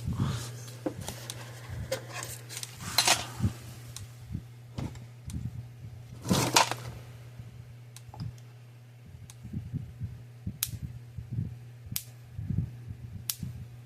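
Patriot PMX120 electric fence energizer, freshly repaired, firing sharp snapping sparks from its output, one pulse about every 1.3 seconds in the second half, over a steady low hum. Irregular handling noises come before the steady pulses.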